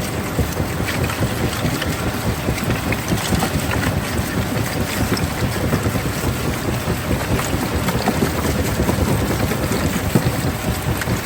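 Stone-crushing plant machinery running: a steady heavy rumble with many small clicks of stone scattered through it.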